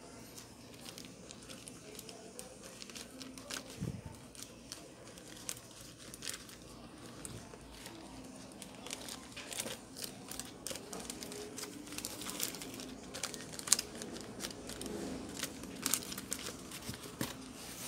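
Pink anti-static plastic bag crinkling and rustling as it is handled, with irregular sharp clicks of plastic laptop parts. The clicks come thicker in the second half, and one louder click stands out near the end.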